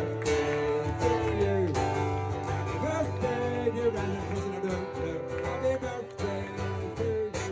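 Music: strummed acoustic guitar with a singing voice carrying the melody.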